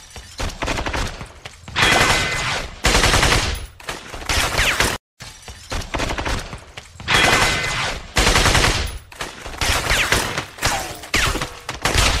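Heavy gunfire: dense, overlapping bursts of automatic and rifle fire, with a short break about five seconds in.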